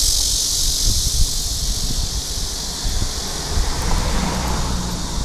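Wind buffeting the microphone in uneven gusts, over a high, even insect drone that fades over the first couple of seconds.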